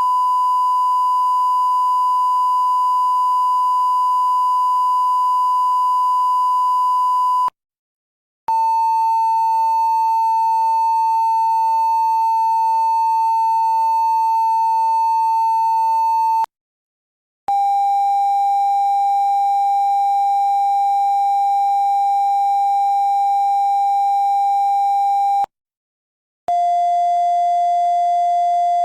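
Censor bleep tones: four long, steady beeps of about eight seconds each, split by one-second silences, each a step lower in pitch than the one before.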